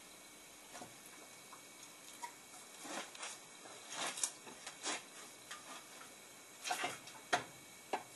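Cylinder head being handled and settled onto the engine block over the head gasket: scattered metallic clicks, knocks and scrapes, in a cluster about three to five seconds in and again near the end, where the loudest knock falls.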